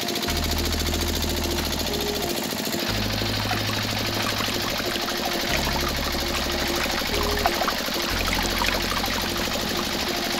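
Thin streams of water trickling and splashing from small taps into little toy buckets, over background music with a steady beat.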